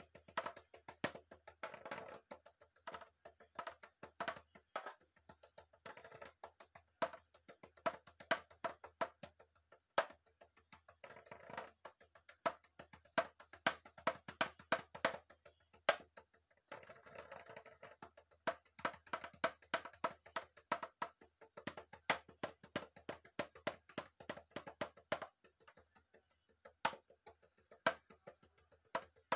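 Homemade percussion: a pink plastic pig-shaped container tapped with thin sticks, giving quick, sharp clicking taps in rhythmic runs with a few brief pauses. A faint low hum sits underneath.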